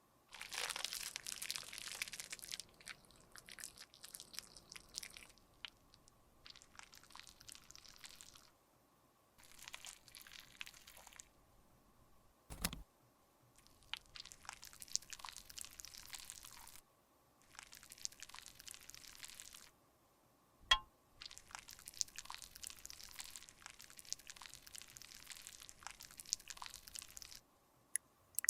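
Makeup being crushed and scraped with a tool: crisp crunching and scraping strokes in runs of a second or few, with short pauses between. There is a single knock about twelve seconds in and a sharp click near twenty-one seconds.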